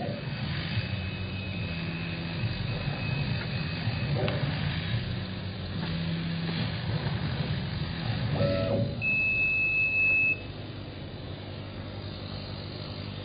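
Laser cutting machine running as it cuts thin plastic film: a steady low machine hum, with a faint high whine for the first few seconds. About nine seconds in, a loud steady beep sounds for about a second and a half and cuts off suddenly.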